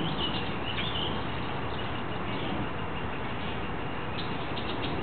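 A few short, faint high peeps from wood ducklings, some in the first second and a small cluster near the end. Under them is a steady outdoor hiss, which is the loudest sound.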